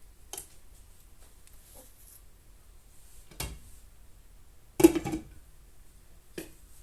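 Four brief knocks of objects being set down or handled in a small room. The third is the loudest, with a short ringing clatter.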